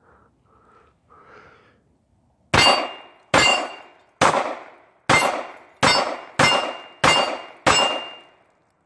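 Eight shots from a 9 mm Star B pistol, fired at a steady pace over about five seconds beginning about two and a half seconds in. After several of the shots a thin high ring hangs on as a steel plate is hit.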